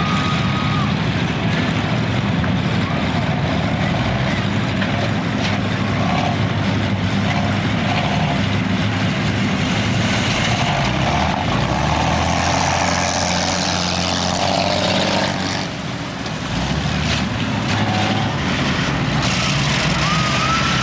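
Engines of demolition derby cars running hard during a chain race, a loud continuous engine drone that rises and falls, dipping briefly about 16 seconds in.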